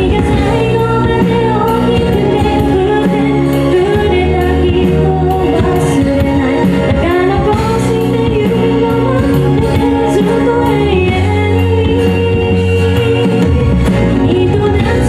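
A woman singing a pop song live into a microphone over a band's accompaniment, with sustained bass notes and a steady cymbal beat.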